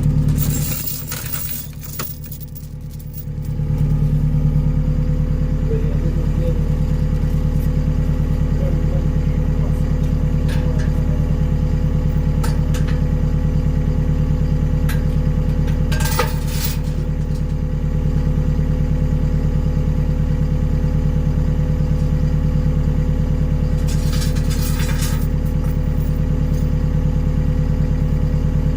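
Skid steer engine running steadily, dropping briefly in level for a couple of seconds near the start, with a few short clanks later on.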